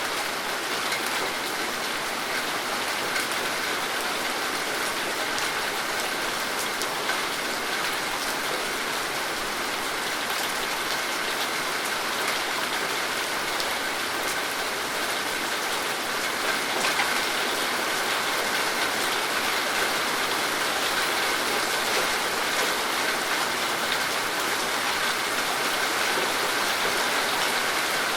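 Steady rain falling and pattering on surfaces, a dense even hiss with many fine drop ticks.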